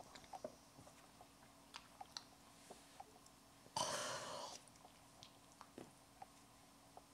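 Close-miked mouth sounds: scattered small clicks from the lips and mouth, with one brief, louder rush of noise about four seconds in.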